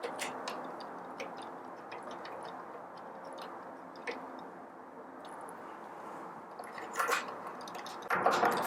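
Scattered small ticks and clicks of a screwdriver working the Phillips screws that hold the motor in a Baratza Forte grinder. A brief cluster of metallic clicks comes about seven seconds in, and louder clinking and clattering of small metal parts starts near the end.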